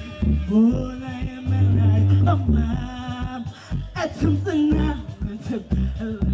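A woman singing live into a microphone over a DJ's dancehall backing track with a heavy bass beat, through a PA system.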